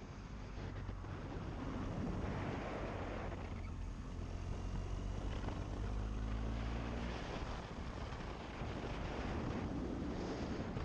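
BMW GS adventure motorcycle's engine running at road speed under heavy wind rush on the microphone, its note rising and falling a little in the middle.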